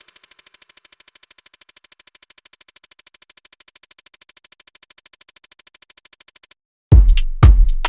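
Electronic background music: a quiet, fast ticking pulse with faint held tones, then a brief break and loud kick-drum beats about twice a second near the end.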